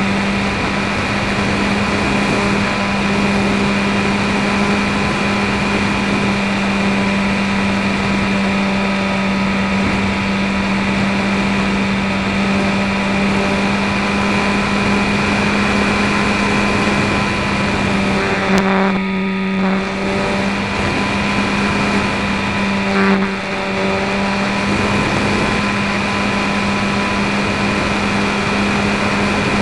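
Electric RC trainer plane in flight, heard from on board: its E-flite 450 860kv brushless motor turns a 10x5 propeller with a steady drone and rushing air, over a constant low hum. About two-thirds of the way through, the sound drops away for about a second, then comes back.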